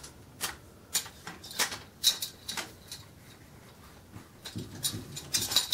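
Bipod of an all-metal RPK airsoft replica being unfolded: sharp clicks and light knocks about half a second apart, then a quicker cluster of clicks near the end as the legs are swung out and set.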